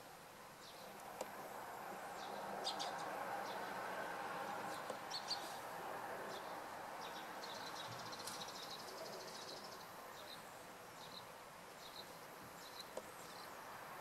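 Faint outdoor ambience: small birds chirping in short, scattered high notes, with a buzzy trill for about two seconds near the middle, over a steady low background hiss.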